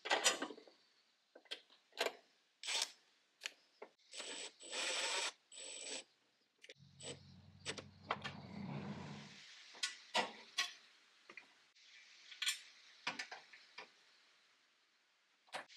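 Makita cordless impact driver running in short spells to drive bolts, amid clinks and taps of a steel bracket being handled against the metal frame. The longest driver run comes about four seconds in and lasts about two seconds, with a second, lower run a few seconds later.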